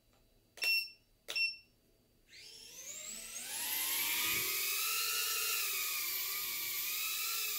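Two short electronic beeps, then the EMAX TinyHawk micro quadcopter's four tiny brushless motors spin up with a rising whine a little after two seconds in. They settle into a steady high-pitched whine as it lifts off and flies.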